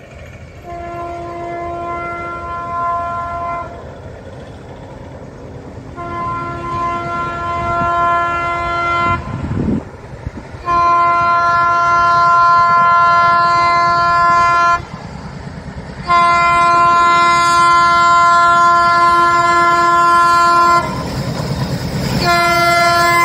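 A WDM-3A diesel locomotive's horn sounding five long blasts, each louder than the last, as the express approaches at speed. Under the horn, the low rumble of the locomotive and train grows steadily louder.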